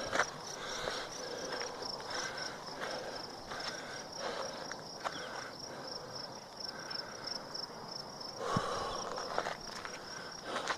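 Insects trilling steadily in a high-pitched, finely pulsing chorus, with the scattered steps and scuffs of bare feet on the trail, a little louder about three-quarters of the way through.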